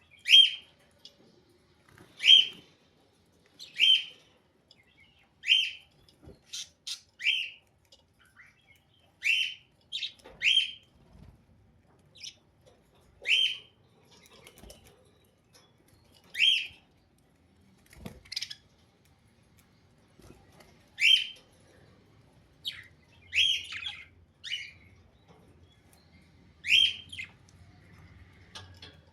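Budgerigar giving short, sharp chirps, one every second and a half to two seconds, with a few quicker doubled chirps and faint softer calls in between.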